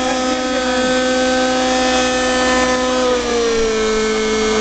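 Gas-engined radio-controlled Bell 222 scale helicopter in flight: its engine and rotors run with a steady, loud, high-pitched whine. The pitch dips slightly about three seconds in, then holds.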